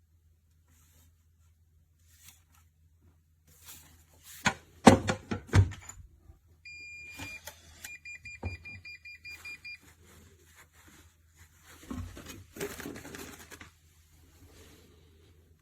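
Handling knocks and clacks on a HOLEWOR biometric pistol safe, the loudest of them a few seconds in. Then the safe's electronic beeper sounds one longer beep followed by a rapid string of short beeps, and more handling and scraping follows near the end.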